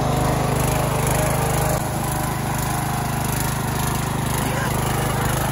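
Ranch King Pro riding lawn mower running steadily as it mows into tall grass and weeds, its engine level dipping slightly about two seconds in.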